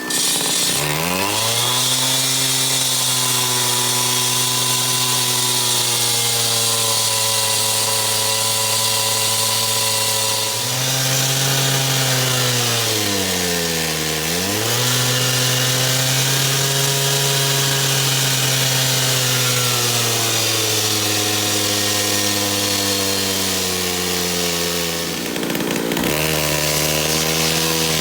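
Engine-driven concrete saw cutting concrete: the engine runs hard over the hiss of the blade grinding through the slab. Its pitch sags and recovers as the blade loads up in the cut, once just after the start, again deeply about halfway, and briefly near the end.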